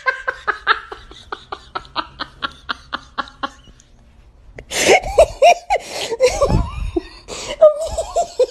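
A person laughing hard: a long run of rapid ha-ha pulses that fades away about three and a half seconds in. After a short pause a second, louder fit of breathy laughter starts at about five seconds and carries on.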